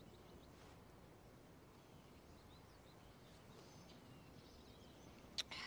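Near silence: faint outdoor ambience with a few faint bird chirps, and a short click near the end.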